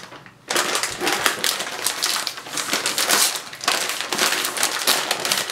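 A plastic chip bag crinkling loudly as it is handled and pulled open by hand, starting about half a second in.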